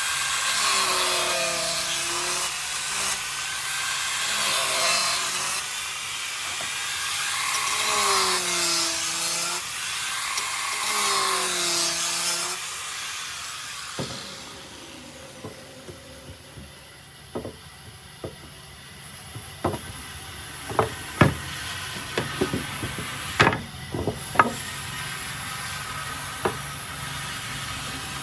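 Power tool working wood for about twelve seconds, its motor pitch dipping and recovering with each pass. It then stops, and irregular sharp knocks and taps follow.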